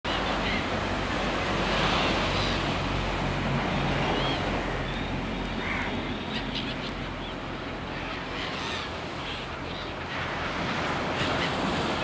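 Surf breaking and washing onto a sandy beach: a steady wash of waves that swells and eases.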